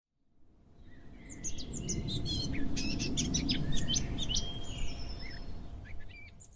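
Small songbirds chirping and singing, many short varied calls, over a steady low background noise, fading in from silence at the start.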